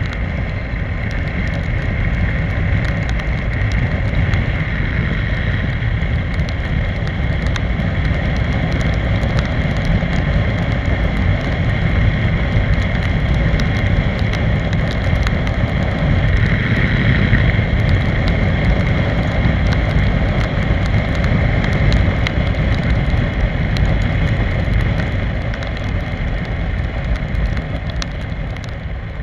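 Steady wind rush and wet-road tyre noise from a Piaggio X Evo 125 scooter riding at speed in the rain, heaviest in a deep rumble, easing slightly near the end.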